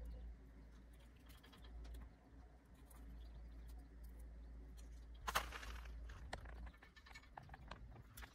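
Faint handling noises from hands working a skinned, hanging masked palm civet carcass: soft scattered clicks, with one louder rasping burst about five seconds in, over a low rumble.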